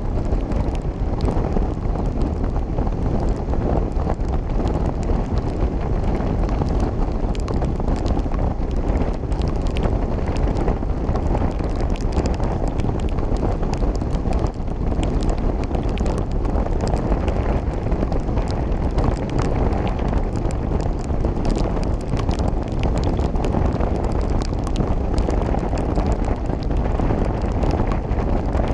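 Steady wind rush on the microphone and road noise from a motorcycle at highway speed on a wet road, with scattered light ticks throughout.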